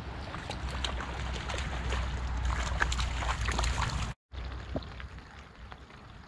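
A hooked trout splashing and thrashing at the surface as it is played in close to the bank, over a steady low rumble of wind on the microphone. The splashing stops abruptly about four seconds in, leaving quieter wind noise.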